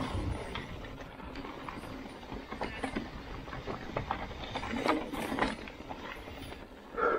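Mountain bike descending a rough trail: irregular clattering and knocking of tyres, chain and frame over rocks and roots, with the ratchet clicking of the freehub while coasting. A short squeak near the end.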